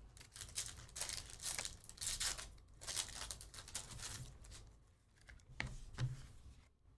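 The wrapper of a 2020-21 Panini Donruss Optic basketball card pack being torn open and crinkled, in a quick run of short crackling rips over the first four seconds or so. After that come softer sounds of the cards being handled, with a couple of light clicks.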